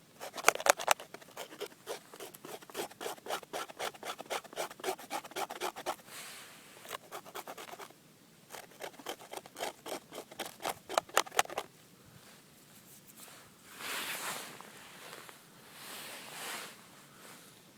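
Rapid, rhythmic scraping of a folding knife's blade on wood or bark, several short strokes a second, stopping about twelve seconds in; then two slower, softer scrapes.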